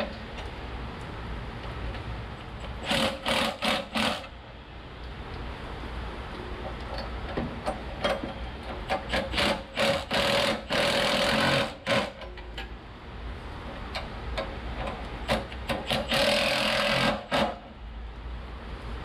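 Cordless power tool run in short bursts to tighten the nuts on a muffler's exhaust flange. A cluster of quick bursts comes about three seconds in, more about ten seconds in, and a longer run near the end, with small metal clinks between.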